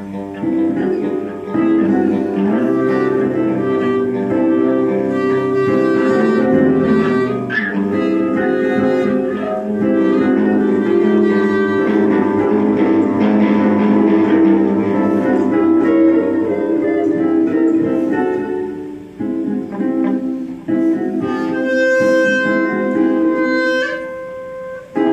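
Live improvised music from two electric guitars and a woodwind, with long held notes layered over one another. The sound thins out briefly a little before the end.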